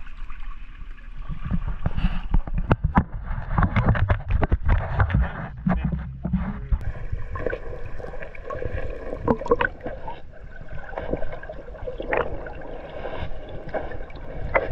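Shallow lake water sloshing and splashing as people wade through it, with irregular splashes over a low rumble.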